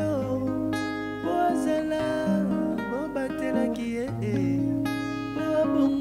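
Background music led by plucked guitar, playing continuously.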